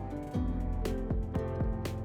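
Background music with a steady beat: held pitched instrument notes over regular drum hits.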